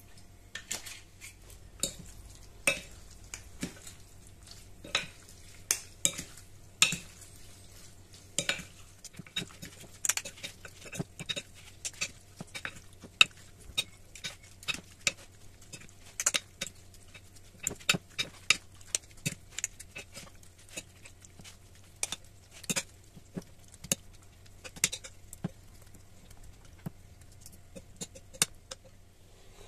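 A plastic serving fork stirring ceviche (raw fish, red onion, avocado) in a glass bowl, with irregular clicks and knocks as it hits the glass. The knocks thin out over the last few seconds.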